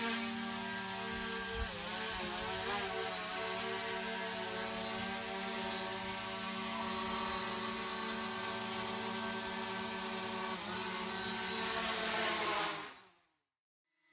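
DJI Mini quadcopter's propellers whining steadily, with a couple of brief wobbles in pitch. About a second before the end the pitch falls as the motors spin down, and the sound stops.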